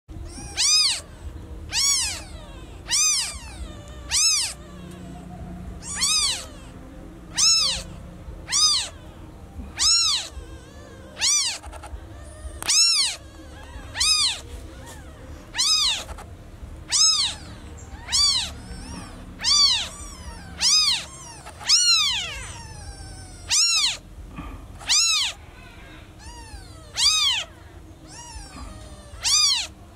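Newborn kitten meowing over and over, about one short, high call a second, each rising and then falling in pitch: the distress call of a kitten separated from its mother.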